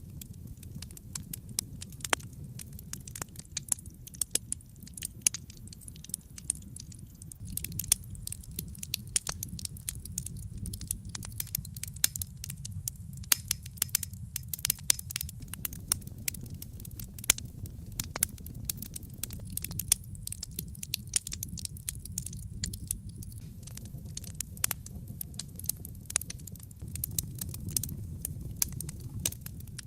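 Wood fire burning with continual irregular crackles and pops over a steady low rumble of the flames.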